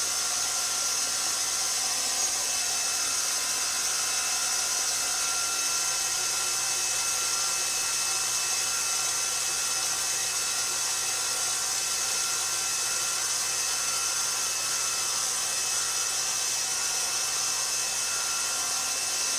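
KitchenAid stand mixer motor running steadily, turning the stainless steel pasta roller attachment as a sheet of pasta dough feeds through the rollers.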